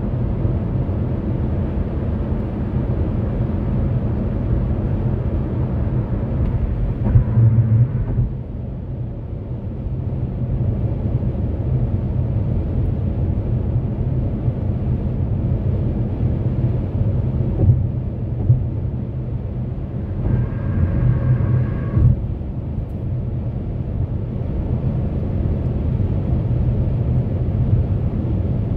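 Steady low rumble of a car's engine and tyres heard from inside the cabin while cruising at highway speed, with two brief louder swells along the way.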